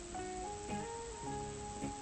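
Background music: a plucked string instrument such as a guitar playing a slow melody of single ringing notes.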